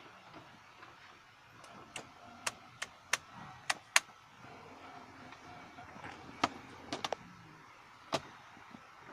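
A series of sharp clicks and knocks, about a dozen in all. They come in two clusters, one from about two seconds in and one from about six and a half seconds in, with a single knock near the end, over faint background noise.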